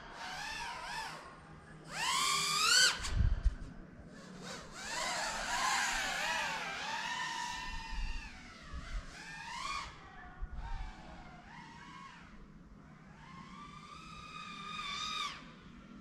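Brushless motors of a GEPRC FPV quadcopter whining as it flies, the pitch swooping up and down as the throttle is worked. It is loudest about two to three seconds in and again around five to seven seconds in.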